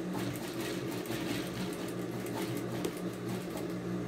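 Industrial straight-stitch sewing machine running, stitching along a fabric seam: a rapid needle clatter over the steady hum of its motor, easing off near the end.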